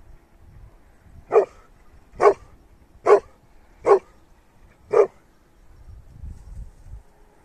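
A dog barking five times, short single barks about a second apart.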